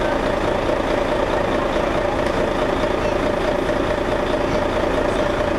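A large vehicle engine running steadily at idle: a constant drone with a steady mid-pitched hum over it.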